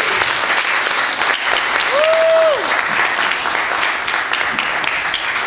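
Audience applauding, with one voice giving a short high whoop about two seconds in.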